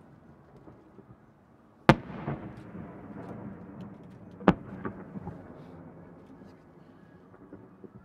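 Aerial firework shells bursting: two sharp booms about two seconds and four and a half seconds in, each followed by a rumbling echo, and a third boom at the very end.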